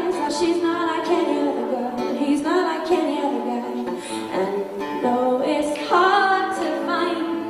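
A woman singing a pop song over instrumental backing, in sung phrases a second or two long.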